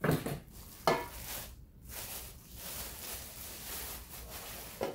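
Clear plastic wrapping crinkling and rustling as it is pulled off a stainless steel steam canner pot. Two sharper, louder sounds in the first second, then steady crinkling.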